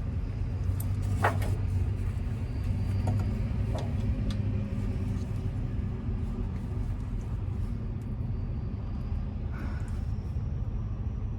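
Steady low rumble of a running engine, with a few faint metallic clicks, likely from a socket wrench working on a drain plug.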